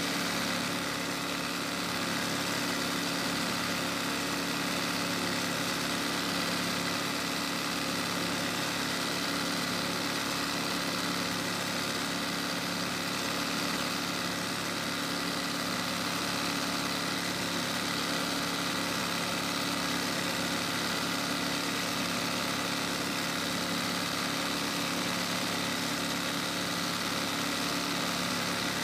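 Electric sewing machine running steadily, stitching hand-guided embroidery into cap fabric, its motor humming without pause.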